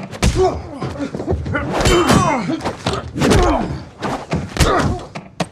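Sound effects of a hand-to-hand fight: a quick series of thuds and knocks, with blows landing on a metal briefcase used as a shield and a brief metallic ring about two seconds in. Men grunt and strain with effort between the hits.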